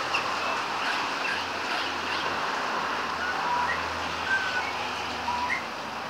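Australian magpie singing: short, scattered whistled notes, some gliding up or down. They sit over a steady rush of wind and traffic noise.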